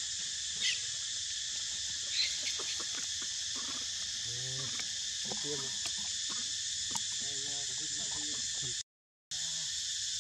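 Steady, dense drone of insects in the forest, with a couple of short high chirps early on. The sound cuts out for a moment about nine seconds in.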